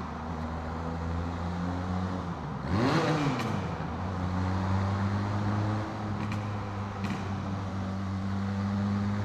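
Benelli 502C's parallel-twin engine running steadily under way, with a quick throttle blip about three seconds in: the exhaust note shoots up in pitch and falls back.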